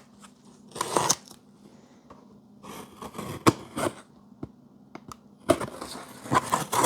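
Cardboard shipping box being opened by hand: irregular rustling and crinkling of cardboard and packing, with several sharp cracks and knocks, the loudest spell near the end.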